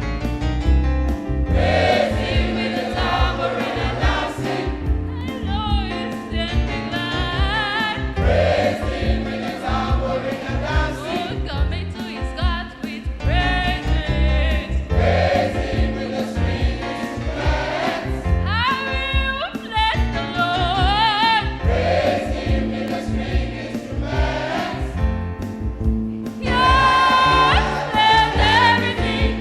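A choir singing a gospel praise song with band accompaniment: bass and a steady beat under the voices, swelling louder near the end.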